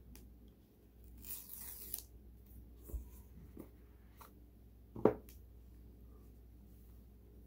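Paper tear strip being ripped off a sealed iPhone 14 Pro Max box, one short tearing rip, followed by a few light knocks and taps of cardboard being handled. The loudest knock comes about five seconds in as the box is opened.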